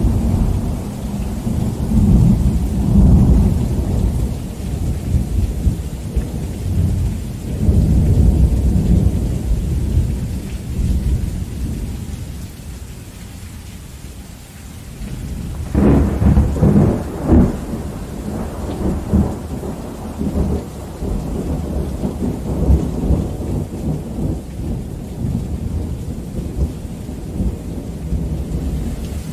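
Heavy rain falling steadily under rolling thunder. Long low rumbles swell at the start and again about a quarter of the way in, then ease off. About halfway through comes a sharper, closer crack of thunder with several quick peaks, which rolls away into lower rumbling.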